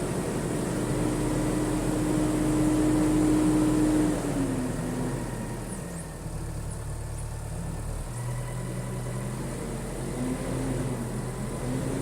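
An engine running with a steady note that falls away about four seconds in, then picks back up and wavers up and down from about eight seconds in.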